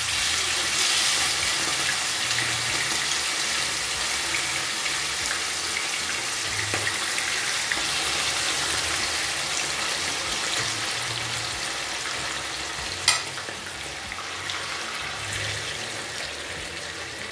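Pieces of liver sizzling in hot oil in a pot while being stirred with a metal slotted spoon; the sizzle eases slightly in the second half. One sharp clink of the spoon about two-thirds of the way through.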